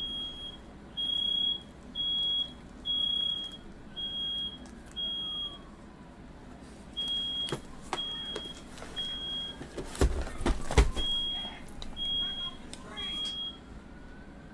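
Smoke alarm beeping, a high steady beep about once a second with a couple of short pauses. A fainter wailing tone slowly rises and falls beneath it. A burst of loud knocks and clatter about ten seconds in is the loudest sound.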